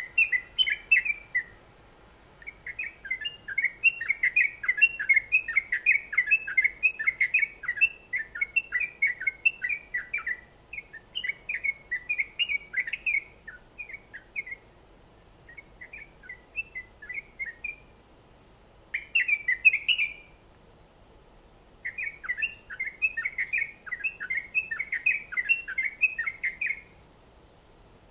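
A caged songbird singing long runs of rapid, chattering notes, broken by short pauses, with the loudest burst about two-thirds of the way through.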